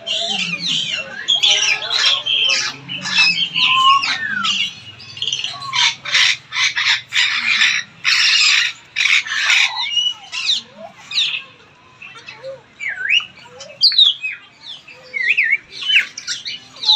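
Parrots, African grey parrots among them, squawking and whistling in a dense run of harsh calls and sliding whistles that thins out after about ten seconds into scattered whistles.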